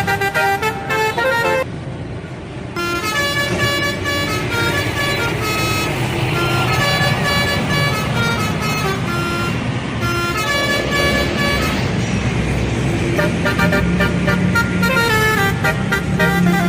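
Bus 'telolet' horn: a multi-tone air horn playing rapid melodic runs of short notes almost without a break, with a short pause about two seconds in, over the low running of the bus engine.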